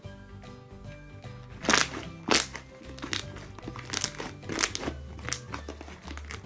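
Background music, with about five sharp, irregular crackling snaps over it from fluffy slime being squished and stretched by hand.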